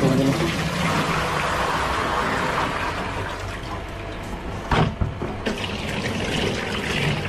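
Water pouring out of a tipped styrofoam cooler box into a metal sink, a steady splashing rush. A sharp knock comes a little before five seconds in.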